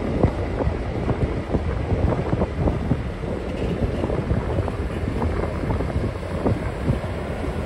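Passenger cars of a train rolling past at close range, their steel wheels clicking and clattering irregularly on the rails, with wind buffeting the microphone.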